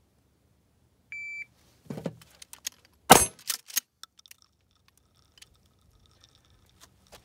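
Shot timer beeps once, then a Mossberg Shockwave 12-gauge pump-action is snatched up with a brief clatter and fires a single shot of 00 buckshot about two seconds after the beep, the loudest sound. A few sharp clicks and knocks follow the shot.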